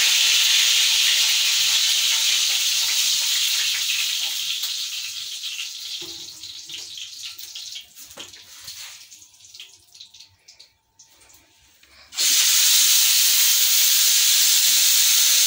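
Chicken frying in hot oil: a loud, steady sizzle that dies away over several seconds to near quiet, with a few faint clicks. About twelve seconds in it comes back suddenly at full loudness.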